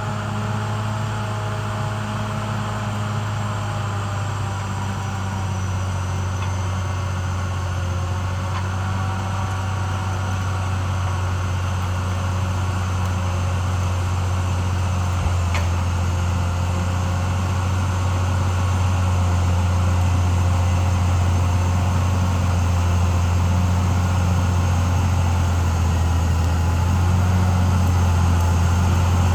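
Caterpillar D6R XL bulldozer's diesel engine running steadily, growing gradually louder, with one brief click about halfway through.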